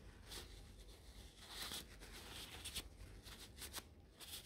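Faint rustling of a paper towel wiping excess wood glue off a wooden part and dowel, with a few light taps.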